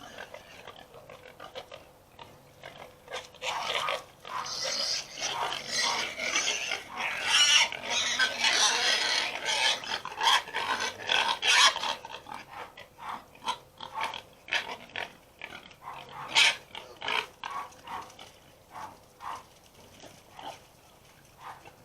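Pigs squealing and grunting excitedly at feeding time, the squealing loudest and most crowded in the middle, then thinning out to scattered short grunts.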